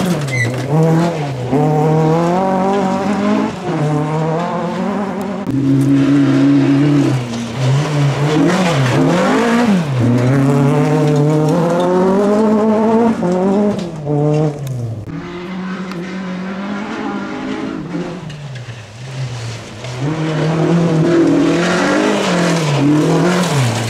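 Renault Clio F2000 rally car's 2.0-litre four-cylinder engine driven hard. The pitch climbs with each burst of throttle and drops at the gear changes and lifts, over and over. It is quieter for a few seconds past the middle, then loud again near the end.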